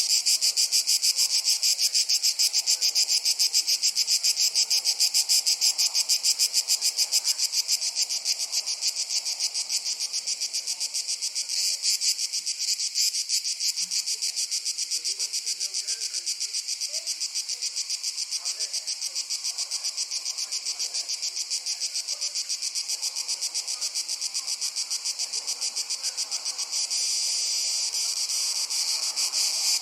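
A chorus of crickets chirping in a fast, even, high-pitched pulse. It gets a little softer about a quarter of the way in and louder again near the end.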